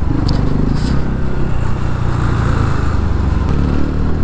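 TVS Ronin's single-cylinder engine running while the motorcycle is ridden, its pitch shifting with the throttle, over wind and road noise. Two short ticks come in the first second.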